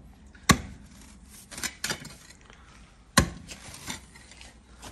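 Hand tools striking hard stony ground while digging out an ACO drain channel: about five sharp, irregular knocks, the loudest about half a second in and about three seconds in.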